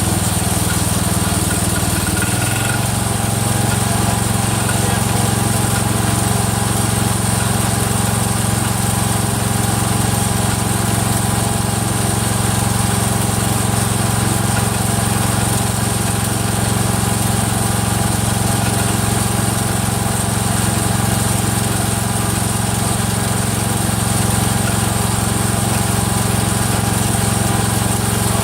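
Rebuilt single-cylinder Kohler engine of a Cub Cadet 102 garden tractor running steadily, shifting speed slightly about two and a half seconds in. It carries a clicking that the owner traces to the front crankshaft pulley coming apart, not to a loose rod.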